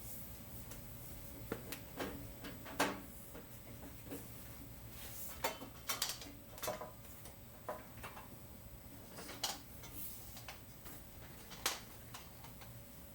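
Irregular light clicks, knocks and clatter of tools and metal parts being handled and set down. There are about a dozen sharp knocks, the loudest about three seconds in and a small cluster around six seconds in, over a faint steady hum.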